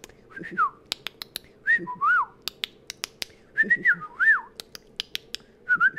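Dolphin whistling and clicking: a few short bursts of wavering, rising-and-falling whistles, with sharp clicks scattered throughout.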